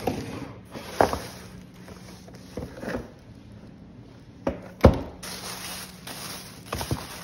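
Shopping being unpacked on a wooden table: a plastic bag and plastic packaging crinkling, with a handful of knocks as a boxed makeup brush set and other items are handled and set down, the loudest about five seconds in.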